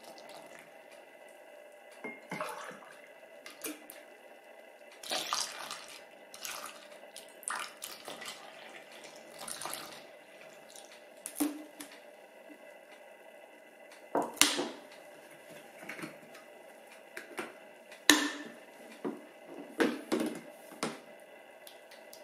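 Kitchen sounds of liquid and dishes in short, separate splashes and clinks, with the loudest about 14 and 18 seconds in.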